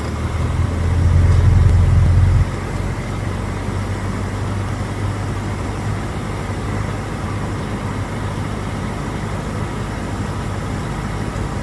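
Cessna 150J's Continental O-200 four-cylinder engine and airflow droning steadily in the cabin on final approach with full flaps. The low drone swells for the first couple of seconds, then drops suddenly about two and a half seconds in and stays steady.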